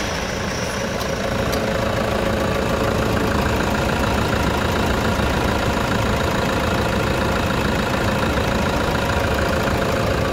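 Toyota Hilux D-4D turbodiesel engine idling steadily just after start-up, with the usual diesel clatter, its drive belt and pulley bearings freshly replaced.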